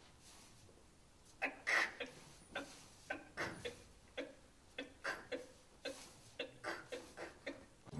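Faint steps and shuffles of feet on a stage mat during Taekkyeon's dance-like basic stepping (pumbalgi). Short soft knocks come about two or three a second, irregular, starting about a second and a half in.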